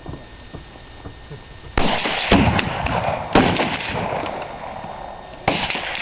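Rifle shots: four sharp reports, the first two close together and the last near the end, each trailing off in a ringing echo.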